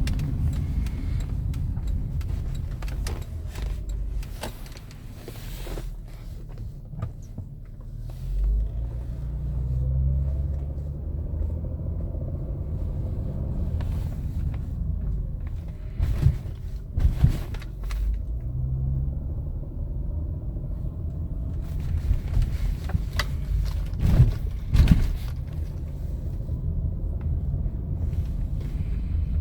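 2008 Acura MDX 3.7-litre V6 engine running and revving, with a rattle that comes in between 1000 and 2000 rpm in Drive. There are a few sharp knocks about halfway through and again about three-quarters of the way in. The cause is still unknown: it appeared after the timing belt, engine mounts and idler pulleys were replaced, and it remains after a valve adjustment and a new water pump.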